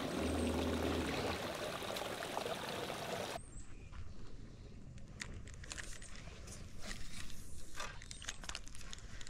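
Steady rushing of flowing water for about three seconds, then a sudden drop to a quieter background with scattered light clicks and handling noise from a spinning rod and reel.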